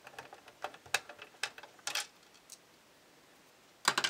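Light clicks and ticks of a small metal screw being picked off a magnetic-tip screwdriver and handled. A short pause follows, then a louder sharp clack near the end.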